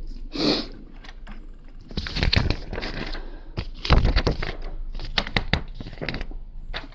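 Plastic Lego pieces clicking and clattering as they are handled and pressed together, in a run of short irregular clicks with louder clusters about two and four seconds in.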